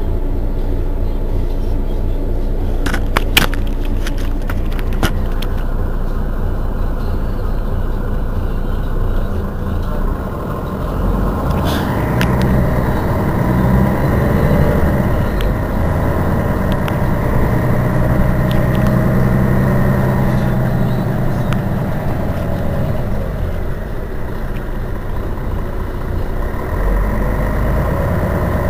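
Mercedes-Benz Citaro city bus standing with its rear-mounted engine idling steadily, with a few sharp clicks a few seconds in.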